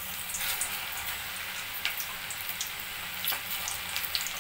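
Hot oil in a steel kadai sizzling and crackling with many small pops as gram-flour-battered okra is dropped in by hand to deep-fry.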